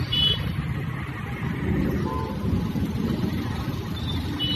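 Road traffic, engines running in a steady low rumble, with short horn toots near the start, a lower one about two seconds in, and more near the end.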